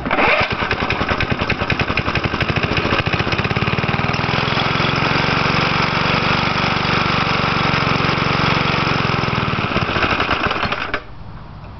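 1977 Briggs & Stratton 3 HP single-cylinder flathead lawnmower engine catching on a cold start and running steadily on full choke, then stopping suddenly about eleven seconds in.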